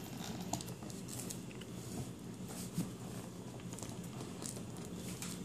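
Hands handling a shrink-wrapped laptop box: faint scattered rustles and light taps on the cardboard and plastic wrap as it is worked open one-handed.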